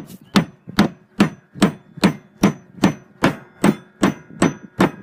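Hammer driving a nail into the wooden roof deck: about a dozen quick, evenly paced strikes, roughly two and a half a second. The nail is going into solid rafter wood.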